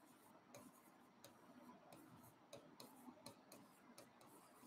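Faint, irregular ticks and taps of a stylus writing on an interactive display board.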